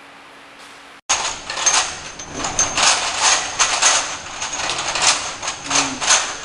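Horizontal vial labeling machine running, with rapid repeated clicking and clinking as small vials feed along the roller conveyor past the label head, and an on-and-off high whine. It starts suddenly about a second in, after a low hum cuts off.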